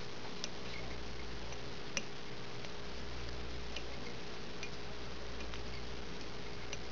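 Faint, irregular small ticks, about one a second, the sharpest about two seconds in, from fingers wrapping flashabou tinsel around a hook held in a fly-tying vise, over a steady low hum and hiss.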